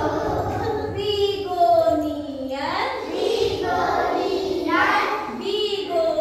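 A group of young children and a woman singing an action song together, with held and gliding notes.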